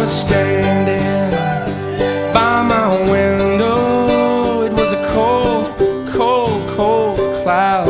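Country-bluegrass music with plucked banjo and guitar playing steadily.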